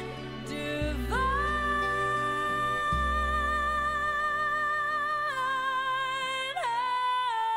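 Music with a high singing voice holding one long note for about four seconds, then stepping down in pitch twice, over a bass line.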